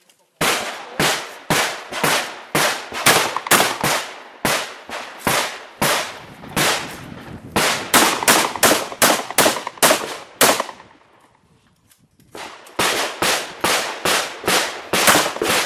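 Shotgun fired in fast strings, about two to three shots a second. A long string is followed by a pause of about a second and a half, then a shorter string near the end.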